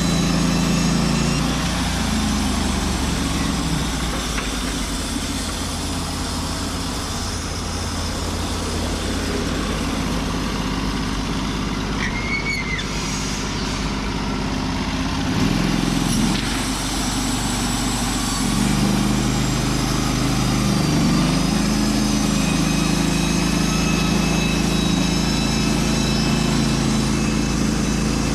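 Norwood portable band sawmill running with its engine at speed; the engine note sags and recovers a few times in the second half as the saw takes load.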